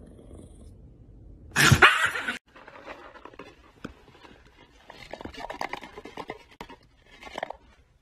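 Dry dog kibble clicking and rattling as a hand scoops it from a bag with a small cup, after a short loud burst of sound about two seconds in that cuts off abruptly.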